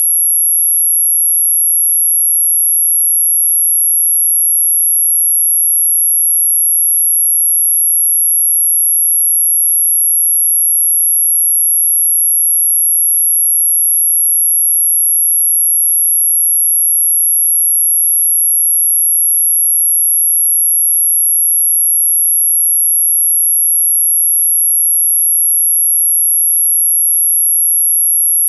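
A single steady, very high-pitched electronic sine tone, unbroken and unchanging, played as an anti-mosquito repellent sound.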